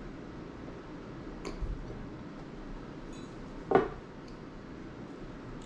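A drinking glass set down on a wooden table with a single sharp knock about three and a half seconds in, after a faint clink of tableware near the start, over steady low room noise.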